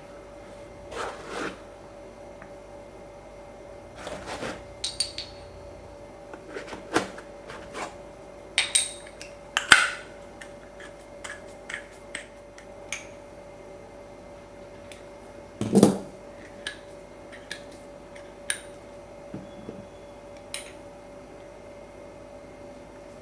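Steel workholding parts being handled and fitted: scattered metallic clinks and knocks, the loudest about ten and sixteen seconds in, over a steady machine hum.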